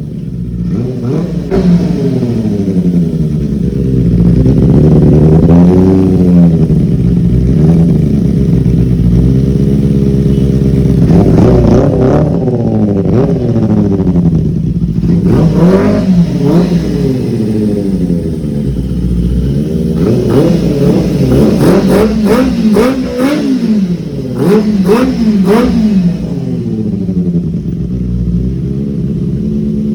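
Superbike engine being revved over and over, the pitch rising and falling with each throttle blip, with a run of quicker, sharper blips in the second half before it settles to a steadier note near the end. Very loud.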